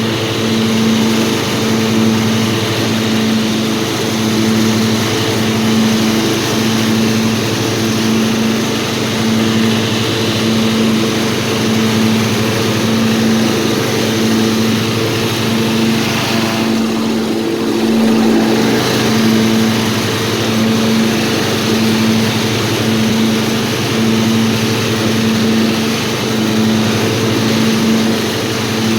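Old riding lawnmower's small engine running steadily at a constant speed, with a slight regular pulse. About two-thirds of the way through, the hiss above the engine note briefly thins.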